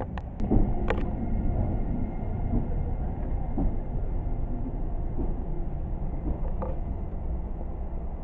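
Class 139 Parry People Mover railcar running past along the platform: a steady low rumble with a faint whine, and a few sharp clicks about a second in.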